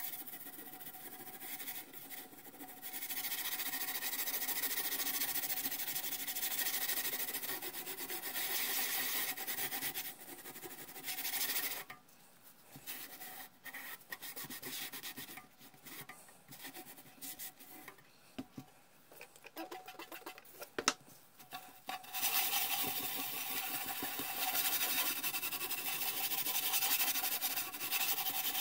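Steel wool scrubbing the steel cabinet of a Heathkit T-3 signal tracer to take off rust: a dense scratchy scrubbing in two long spells, with shorter, quieter strokes between them and a sharp knock about twenty-one seconds in.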